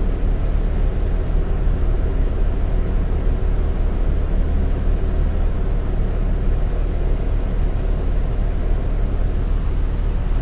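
Cabin sound of a New Flyer D40LF transit bus with its Cummins ISL9 8.9-litre diesel idling steadily while stopped. A faint high hiss comes in near the end as the bus starts to move off.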